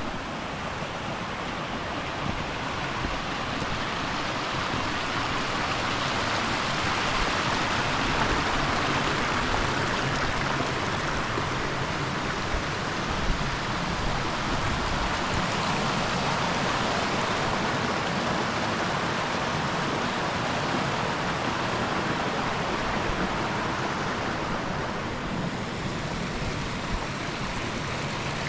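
Steady rush of water from a mountain stream, swelling a little midway and easing slightly near the end.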